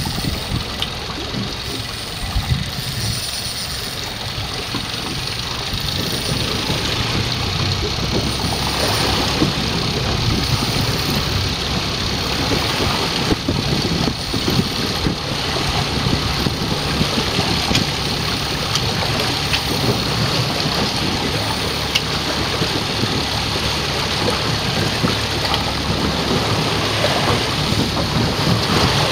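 A boat's engine running steadily, mixed with a constant rushing noise of wind and sea.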